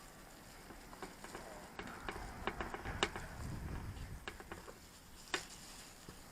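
Scattered light clicks and taps of gloved hands handling a plastic quadcopter shell, busiest from about one to four seconds in, with a sharper tap about three seconds in and another near the end.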